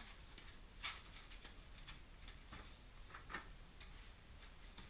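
Faint scuffs and clicks of a person crawling through a concrete pipe over grit, with two louder knocks, one about a second in and one past three seconds.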